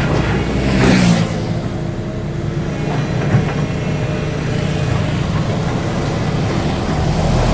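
Diesel engine of a Doosan DX225LCA excavator running under work, swelling briefly about a second in, with a single knock a little after three seconds.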